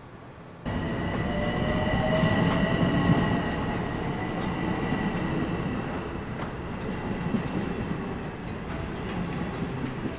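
Commuter train running on the rails, cutting in abruptly about half a second in, with a high steady squeal of the wheels over the rumble.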